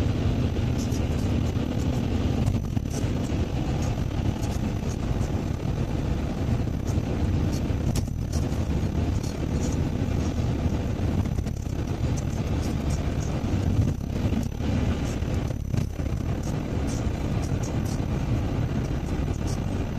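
Steady in-car driving noise: the car's engine and its tyres running on wet asphalt, a continuous low rumble with road hiss.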